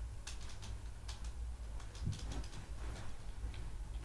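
A few scattered computer keyboard keystrokes over a steady low electrical hum, with a short low thump about halfway through.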